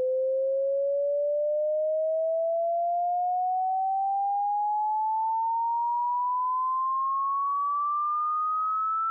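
Hearing-test pure sine tone sweeping slowly and smoothly upward in pitch, rising about an octave and a half at an even loudness.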